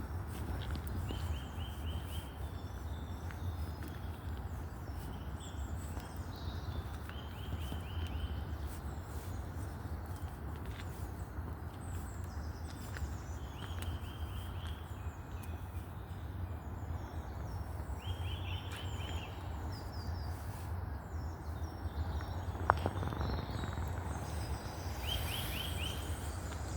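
Woodland birds singing. One bird repeats a short burst of quick, evenly spaced notes about every five or six seconds, with fainter higher chirps between. A steady low rumble runs underneath, and there is one sharp click about 23 seconds in.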